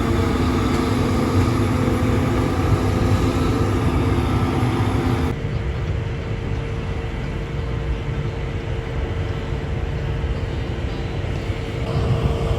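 Vehicle engine running steadily, a low rumble with a steady hum over it; the sound changes abruptly about five seconds in, the higher part dropping away.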